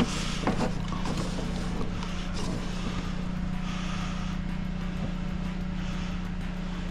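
Engine of a drain-cleaning machine running steadily with an even, low hum.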